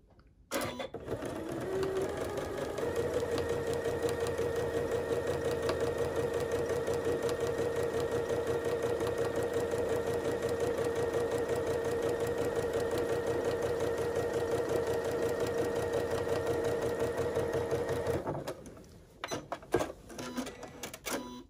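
Electric sewing machine stitching a seam through layered fabric: the motor starts about half a second in, speeds up over the first two or three seconds, then runs steadily with a fast needle rhythm. It stops about three seconds before the end, leaving a few light clicks and fabric handling.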